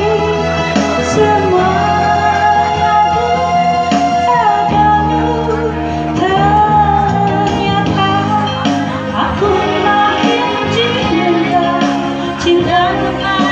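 Singing with instrumental accompaniment: a voice holds long, gliding melody notes over steady backing chords.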